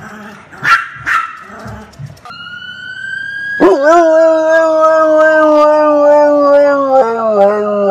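A dog barks twice sharply, then a dog howls: one long, loud, steady howl that drops a little in pitch near the end.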